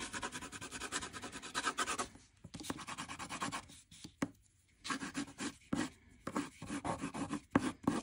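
Coloured pencil scratching across painted paper in quick back-and-forth scribbling strokes, laying texture into the background. The strokes pause briefly about two seconds in and for about a second near the middle, then come as shorter, separate strokes.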